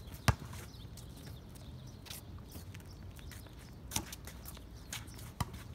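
A few sharp knocks of a basketball and sneakers on a concrete court, irregularly spaced, the loudest just after the start, over a low steady rumble.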